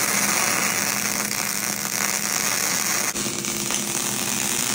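MIG welding arc from a Millermatic 185 laying a bead on a cast-iron Dana 60 axle housing: a steady, dense hiss, with a brief break about three seconds in before it carries on.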